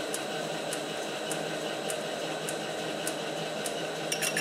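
Metal lathe running steadily with the workpiece turning in the chuck, with a light tick about every 0.6 s. Near the end a faster, ringing clicking starts, about six a second.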